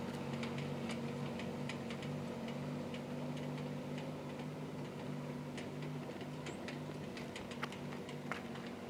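A vehicle engine running low and steady on a rutted dirt road, with many irregular light clicks and rattles over the hum and two sharper ticks near the end.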